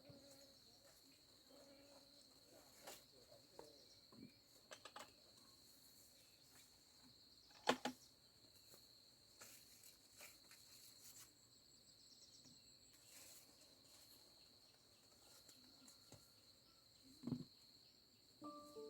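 Faint, steady high-pitched chirring of insects, with scattered small clicks and knocks over it. The sharpest knock comes about eight seconds in, and a duller one comes near the end.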